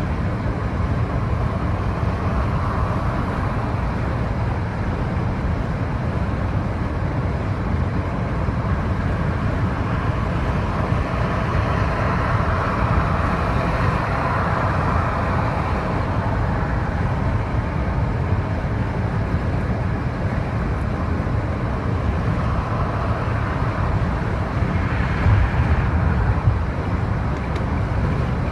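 Steady road and engine rumble heard inside a moving car, with tyre and wind noise that swells a little three times.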